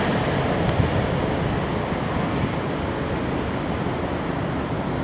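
Jet engines of a landing Boeing 777 airliner: a steady, loud rushing roar on final approach and touchdown, easing slowly.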